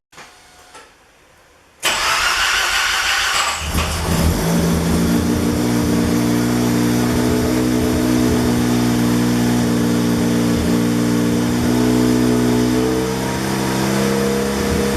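Mazda RX-7 FD's twin-rotor rotary engine starting from cold: it bursts into life about two seconds in, runs rough for a moment, then settles into a steady fast idle, the pitch stepping up slightly near the end.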